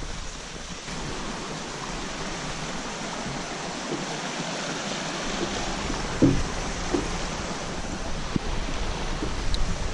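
Steady rushing of a small rocky stream flowing past a wooden footbridge, with a few dull footstep thumps on the bridge planks in the second half.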